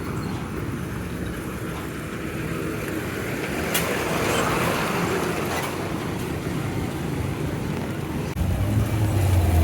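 Motor vehicle engine running steadily under road traffic noise, with a louder low rumble setting in near the end.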